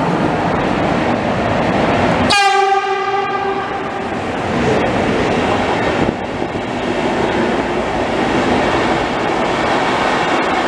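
FlixTrain locomotive-hauled passenger train running into the station. About two seconds in its horn sounds one blast of a little over a second. Then the rumble and wheel noise of the coaches running close past carry on.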